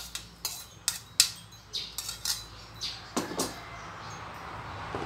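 Stone pestle pounding roasted chilies, shallots and garlic in a stone mortar: a run of sharp irregular knocks, about two or three a second, that stops about three seconds in.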